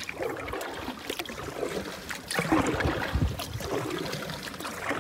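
Paddling a solo canoe: the paddle dipping and pulling through calm water, with drips and light splashes. It is louder for a moment a little past halfway through.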